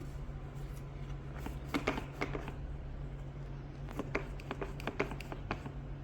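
Hands handling objects at close range: two short clusters of light clicks and rustles, about a second and a half in and again around four seconds in, over a steady low hum.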